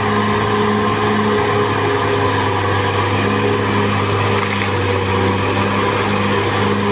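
Caterpillar D6R XL bulldozer's diesel engine running steadily.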